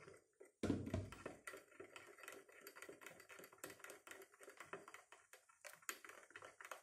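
A spoon stirring hot fabric dye in a glass, clinking against the glass in quick, irregular little taps, with a louder knock about a second in.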